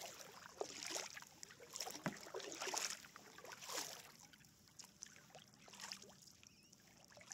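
Kayak paddle strokes in calm water: the blades dip and splash, with water dripping and gurgling off them about once a second. The strokes are quieter in the second half.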